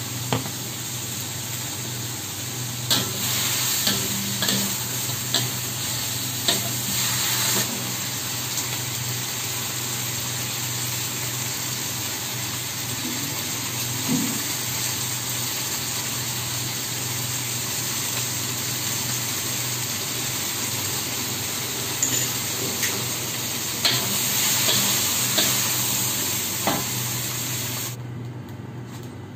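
Shrimp sizzling in sauce in a hot wok over a gas flame, stirred with a metal spatula that scrapes and clanks against the wok, several sharp strokes in the first few seconds and again near the end. The sizzle fades just before the end.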